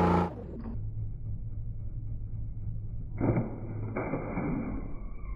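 Portable twin-tub washing machine running: a steady motor hum, joined about three seconds in by a high, steady whine. A brief loud noise cuts off in the first moment.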